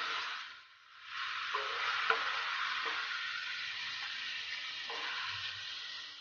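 Raw chicken pieces sizzling as they are seared in hot oil in a metal wok, stirred with a wooden spatula. There are a few sharp knocks of the spatula against the pan, and the sizzle dips for a moment about a second in.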